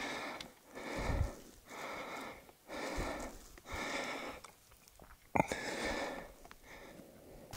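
Heavy, rapid breathing of a man hiking uphill under a heavy backpack, in and out about once a second from the exertion of the climb. A single sharp knock about five seconds in.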